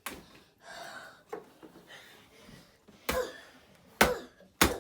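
Baseball bat striking a tablet: a sharp knock at the start, then three more in quick succession over the last two seconds.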